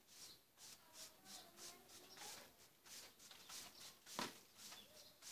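Faint scratchy strokes of a hand brush sweeping over freshly laid brickwork, about three strokes a second, with one sharp tap about four seconds in.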